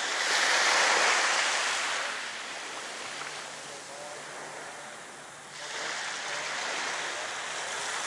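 Small sea waves washing up onto a pebble beach and drawing back. One swell comes in about a second in and fades, and the next starts to rise about five and a half seconds in.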